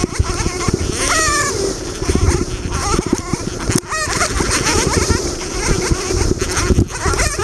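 Two-stroke dirt bike engine running under load over rough ground, its revs rising sharply about a second in and again near four seconds in. Wind buffeting and bumps on the microphone knock throughout.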